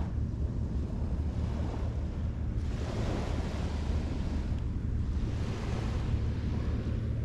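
Small sea waves washing onto a sandy beach, the wash swelling twice, with wind buffeting the microphone as a steady low rumble.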